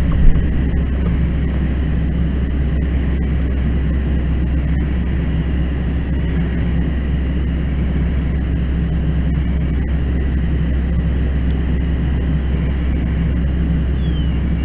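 Steady rush of a fire hose stream flowing from the nozzle, over a low steady drone, with one brief knock just after the start.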